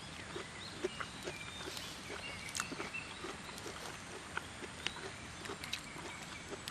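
A person chewing a mouthful of scallop rice close to the microphone, about two soft chews a second, with small sharp clicks mixed in.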